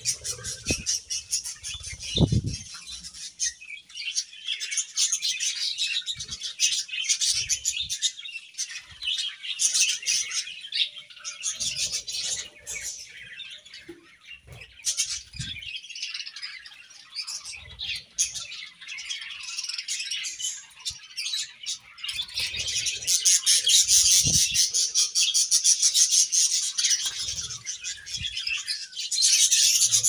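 A flock of budgerigars chattering and warbling without a break, with wing flaps and short low thumps as birds move about in leafy branches; the chatter grows louder about two-thirds of the way through.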